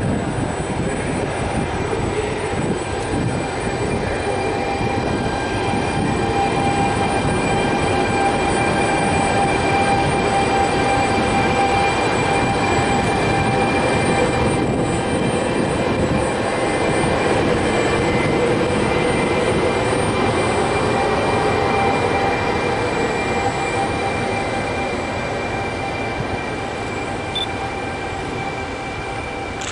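A train running through the station at close range: a steady rumble of wheels on rail with several whining tones, one rising and then falling in the middle. It is loudest through the middle and eases off near the end.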